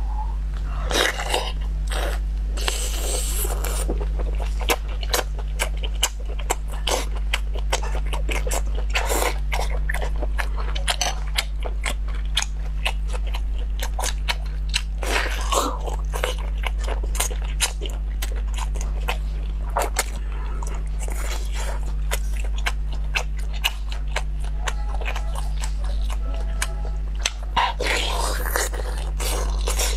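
Close-miked biting and chewing of a whole cooked squid, with many short mouth clicks throughout, over a steady low hum.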